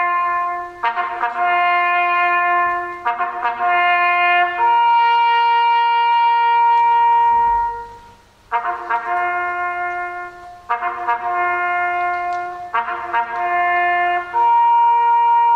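Solo trumpet playing a slow bugle call: short phrases of a few notes, each ending on a long held note, with a short break about eight seconds in.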